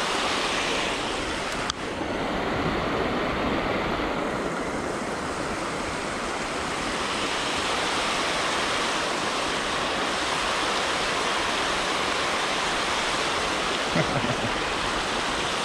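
River water rushing steadily over a low concrete weir and down its sloped spillway, a constant even rush.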